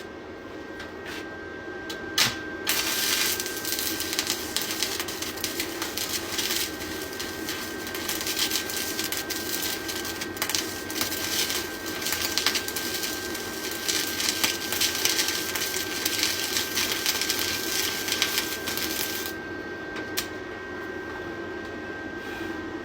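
Stick-welding arc from a TOOLIOM TL-195S inverter welder, set to about 45 amps, burning a bead with a steady crackle and sizzle; it strikes about three seconds in and breaks off a few seconds before the end. A steady high whine runs underneath.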